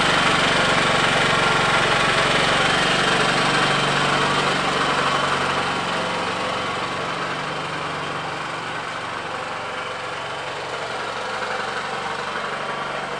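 Champion 220-volt open-frame inverter generator running steadily at idle. The engine sound fades gradually as the generator is wheeled away.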